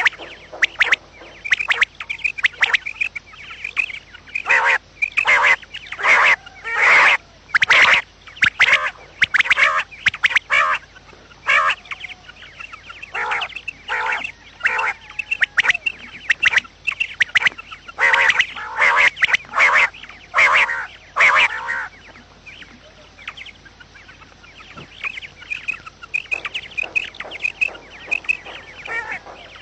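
Quail calling over and over, in rapid runs of short, harsh notes. The loudest clusters come a few seconds in and again about two-thirds of the way through, with softer calls between. This is a hunting lure recording of quail calls.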